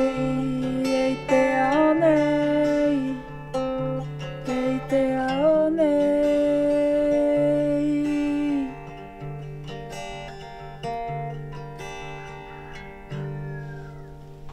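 A woman singing long held notes with slides and vibrato over strummed acoustic guitar. Her voice stops about two-thirds of the way through, and the guitar plays on, fading as the song ends.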